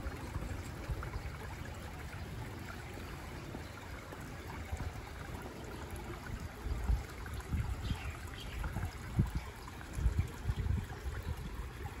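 Shallow water running and trickling over lava rocks at a small waterfall, a steady rush, with a few low rumbles now and then.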